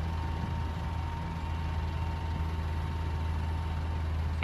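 Heavy diesel engines of an excavator and dump truck running steadily at a low drone, with a faint steady whine over them. A brief sharp sound comes at the very end.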